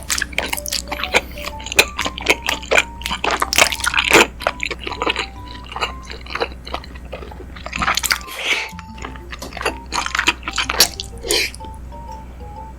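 Close-miked chewing of chewy tteokbokki rice cakes: wet, sticky mouth sounds with frequent sharp smacks and squishes, over soft background music.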